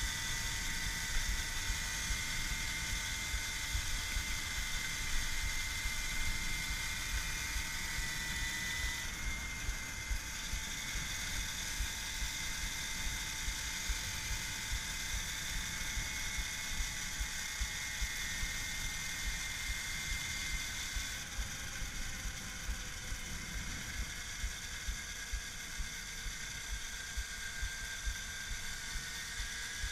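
Electric-converted Babetta moped's brushless outrunner motor whining steadily at cruising speed, over low wind rumble on the helmet camera's microphone. Over the last several seconds the whine falls in pitch as the moped slows.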